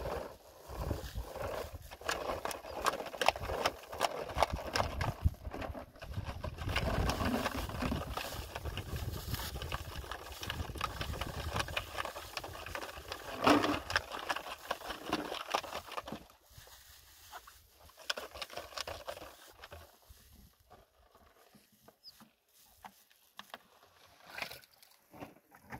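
Plastic water bottles and jerrycans being handled and filled at a rocky spring: many small knocks, clicks and scrapes with pouring water. It is busy for the first half, with one sharp knock midway, then thins to scattered clicks.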